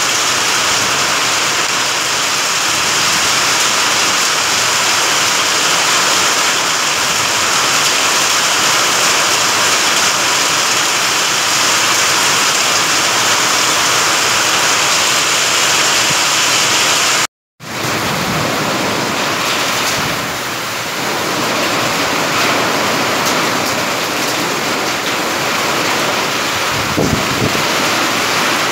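Heavy rain pouring down, a steady dense hiss. It drops out for a moment about two-thirds of the way through and comes back as a second stretch of downpour, with a short low thump near the end.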